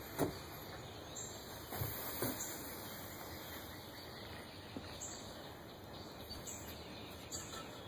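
Faint outdoor background hiss with a few short, high chirps scattered through it and some soft knocks in the first few seconds.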